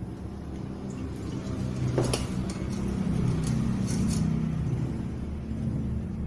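Light clinks of a pot and strainer as a ginger, kencur and turmeric decoction is strained, about two, three and a half and four seconds in, over a low steady rumble.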